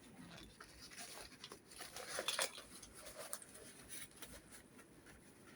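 Handling noise from a monopod and its carry case being opened: scattered small clicks and rustles, busiest about two seconds in.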